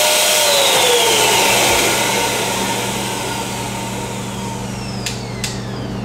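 Small electric air blower running hard, then its pitch falling steadily from about a second in as it switches itself off on reaching pressure and winds down, over a steady low hum. Two sharp clicks near the end.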